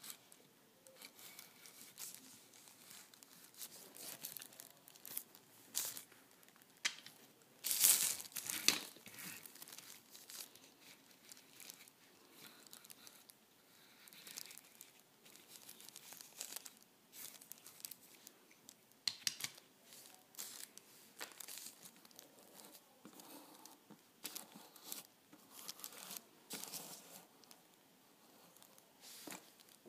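Plastic shopping bag crinkling and rustling in irregular bursts as small die-cast toy cars are handled and turned about on it, with the loudest crackles about eight seconds in.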